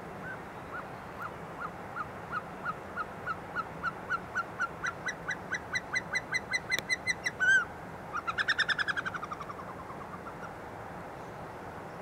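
Caucasian snowcock singing: a series of short whistled notes that speed up, rise slightly in pitch and grow louder over about seven seconds, then a fast run of notes that falls in pitch and fades away.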